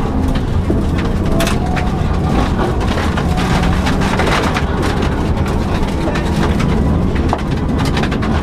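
Subaru Impreza rally car's engine running hard along a stage, with frequent sharp clicks of stones and gravel striking the car.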